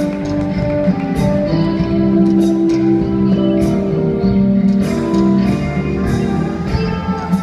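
Latin ballroom dance music with a steady beat and held melody notes, played for competing couples.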